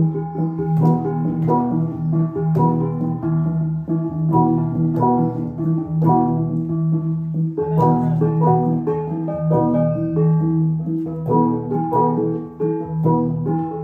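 Central Highlands cồng chiêng gong ensemble playing: several tuned gongs struck in a repeating, interlocking rhythm, their ringing tones layered over a sustained low tone.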